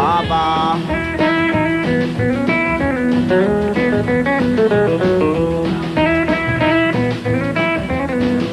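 Country band playing an instrumental break between sung verses, with a guitar picking the lead line.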